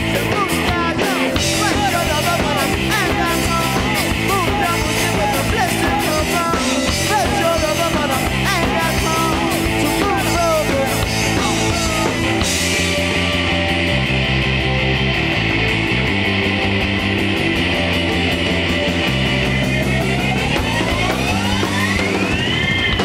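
Instrumental passage of a rock song played by a band. For about twelve seconds busy drums and cymbals run under sliding lead lines. Then the cymbals drop out, leaving low chords. Near the end a long rising pitch glide climbs to a peak.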